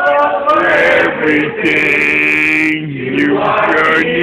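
Several male voices singing and chanting loudly together, holding long notes that slide up and down in pitch.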